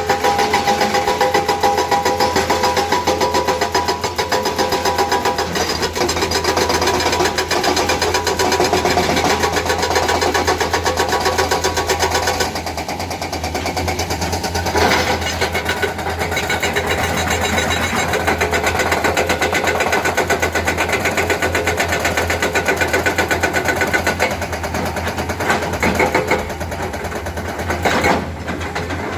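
Komatsu excavator's hydraulic breaker hammering in a fast, even, continuous rattle of blows, with the excavator's engine running underneath.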